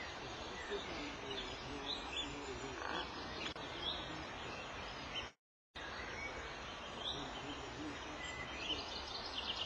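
Scattered short, high bird calls over a steady hiss of outdoor noise. The sound cuts out completely for about half a second a little past the middle, and a quick run of high calls comes near the end.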